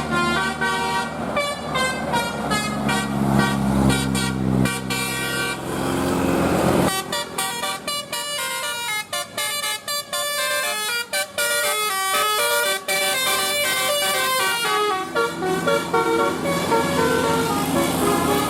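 Telolet bus horn, a set of electric air-horn trumpets, playing a fast melody of quickly changing notes. A low hum runs under the first part and stops about seven seconds in, where a new, choppier run of notes with short breaks begins.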